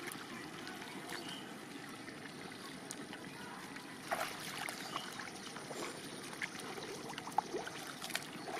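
Shallow paddy water sloshing and trickling as a person wades barefoot and rummages in the muddy bottom with both hands, with a few short splashes in the second half.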